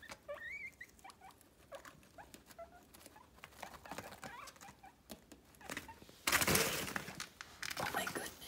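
Two guinea pigs squabbling: short rising squeaks in the first second and small chirps after. About six seconds in comes a loud rustling scuffle, with a shorter one near the end.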